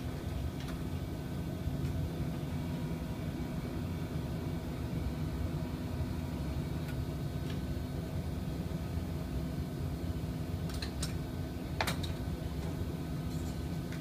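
Steady low hum of running factory machinery with a constant droning tone. A few sharp metallic clicks come near the end.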